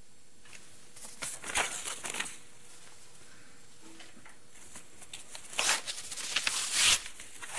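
Paper rustling in short scrapes as the sheets of a contract and its folder are handled, in two spells with quiet room tone between.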